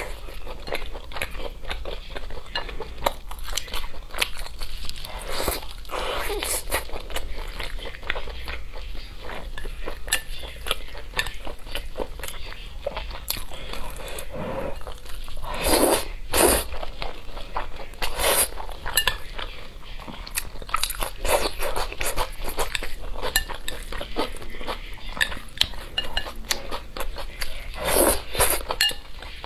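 Close-miked eating sounds: crunchy bites and wet chewing of fried chicken and sauced glass noodles, with a few louder noodle slurps and chopsticks tapping against the glass bowl.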